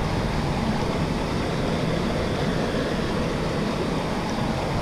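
Flowing stream water rushing steadily over rocks, with a strong low rumble.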